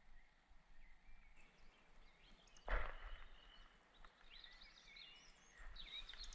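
Songbirds chirping and whistling faintly in a dusk woodland, with one short, loud thump about two and a half seconds in.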